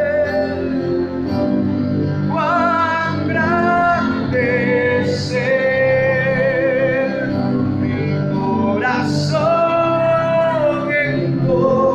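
Church hymn sung by voices with instrumental accompaniment: slow phrases of long held notes with vibrato.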